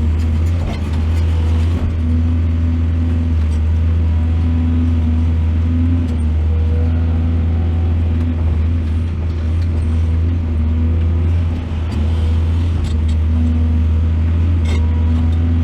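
Excavator's diesel engine running steadily, with a few faint ticks over it.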